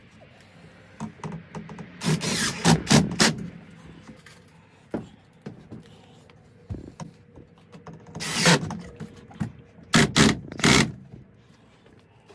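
Cordless driver driving screws into plywood in a few short bursts, with small knocks of handling between them.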